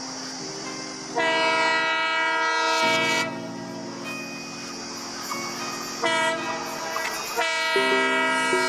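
Railway locomotive horn sounding in long steady blasts: one of about two seconds starting about a second in, a short one about six seconds in, and another starting shortly before the end.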